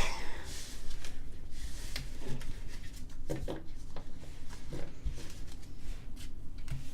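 Pokémon card pack and its packaging being handled: rustling and crinkling with scattered small clicks and taps.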